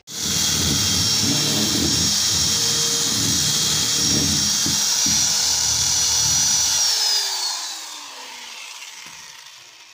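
Corded electric hand drill running at full speed, boring into the top of a plastic water tank. About seven seconds in it is released, and its motor whine falls in pitch and fades as it spins down.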